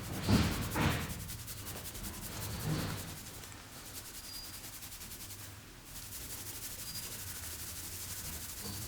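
Hands rubbing over the scalp and hair in a head massage: a steady, fast rubbing hiss, with a few louder strokes in the first three seconds.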